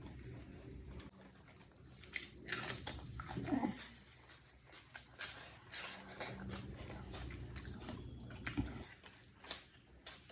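Close-miked chewing of a big mouthful of chicken biryani with raw onion: moist mouth clicks and crisp crunches come irregularly, several to a second, louder from about two to six seconds in.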